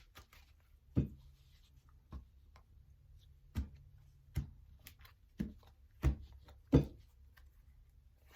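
Oracle cards being handled and set down on a table: a scattered series of light, sharp taps and clicks, about seven in all.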